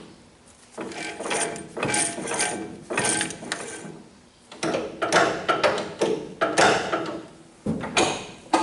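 A series of short bursts of metallic clicking and clunking from a John Deere 60 tractor's flywheel and gear train being worked by hand.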